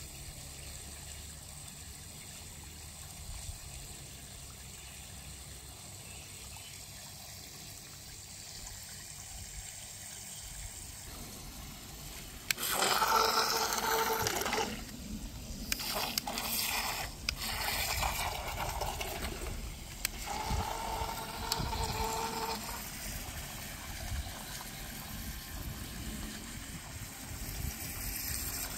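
Toy RC speedboat's two small electric motors whining in bursts of a few seconds as the throttle is worked, over the churning and spraying of water thrown up by its drive. The first stretch holds only a faint, steady low background before the motors start.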